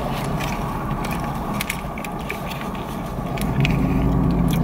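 Steady hum inside a parked car's cabin, with the crinkle and small clicks of a paper burger wrapper being unwrapped and handled while eating. A deeper engine-like hum grows louder near the end.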